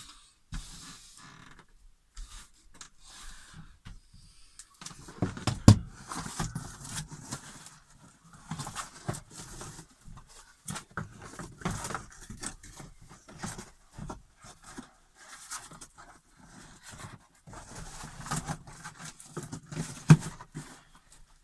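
Rustling and scraping of foam insulation being pushed and worked into place around an RV fridge, with irregular knocks and two sharp, loud knocks.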